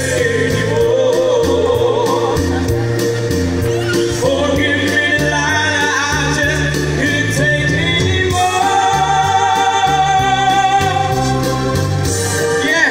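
A man singing a song with wavering held notes over a backing track with a stepping bass line.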